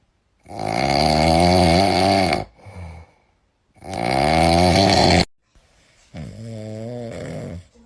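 Cat snoring: three long snores about every three seconds, the last one quieter.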